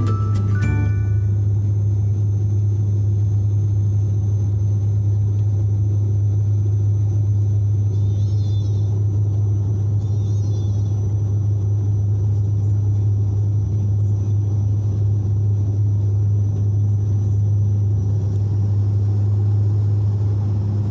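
Steady deep propeller drone and engine rumble of a turboprop airliner, heard from inside the passenger cabin during the descent and landing. A faint high whine runs under it and stops near the end.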